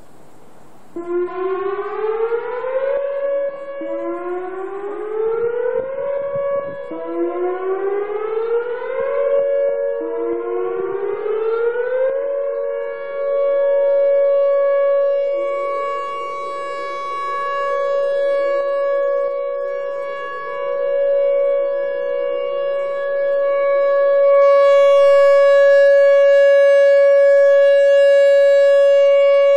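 Outdoor warning siren sounding a regular monthly test. About a second in it starts with four rising wails about three seconds apart, then holds a steady high tone that swells and fades every few seconds.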